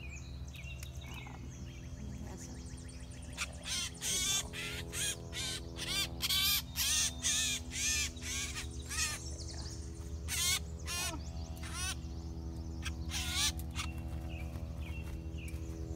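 A bird calling over and over: a run of about a dozen loud, harsh calls a fraction of a second each, starting a few seconds in and stopping a couple of seconds before the end, with fainter chirps around them.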